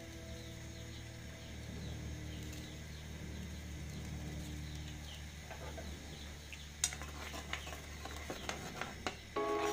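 A metal fork clicking and scraping against a frying pan while corn cobs are moved around in it, with several sharp knocks in the second half, one louder than the rest. Background music comes back in at the very end.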